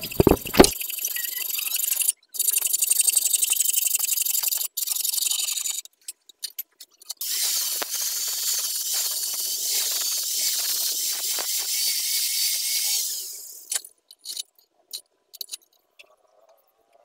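Small electric angle grinder grinding a stainless-steel header pipe clamped in a vise: a steady, high-pitched grinding noise in two runs of about five and six seconds. A couple of sharp metal knocks come at the very start.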